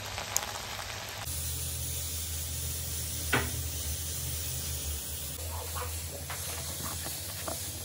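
Vegetable curry with water added for gravy, boiling in a pan with a steady hiss. After about a second it gives way to a steady low hum with one sharp click and a few faint small ticks.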